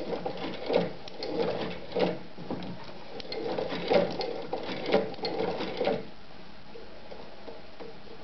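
Gemsy 2972 cylinder-arm shoe patcher sewing machine, a Singer 29-class copy, worked by its handwheel and stitching a leather strip. Each stitch gives a mechanical knock, roughly once a second, and the knocks stop about six seconds in.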